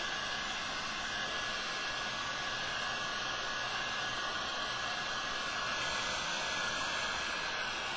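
Electric heat gun running steadily, a continuous rush of blowing air with a faint high steady tone in it.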